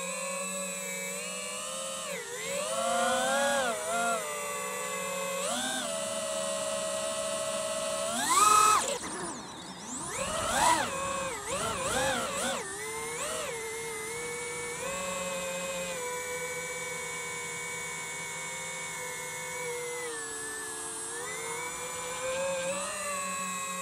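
DJI FPV quadcopter's brushless motors and propellers whining in flight, the pitch sliding up and down with the throttle. Several sharp throttle punches come about a third of the way in, the loudest of them early in that stretch, then the whine settles into a steadier cruise with a brief dip near the end.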